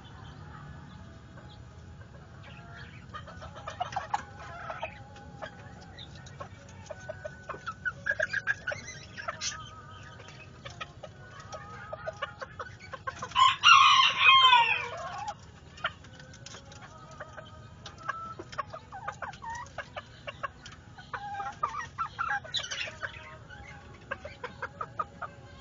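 Polish Frizzle chickens clucking in short repeated calls, with one loud rooster crow of about two seconds near the middle.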